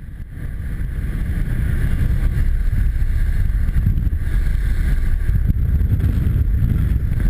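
Steady, loud rumble of a small jump plane's piston engine and propeller, heard from inside the cabin, with wind rushing in at the open door and buffeting the microphone. The noise swells up over the first second or two.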